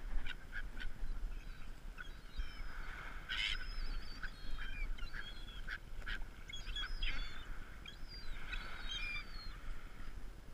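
A flock of gulls calling: many short, overlapping squawks and cries from several birds.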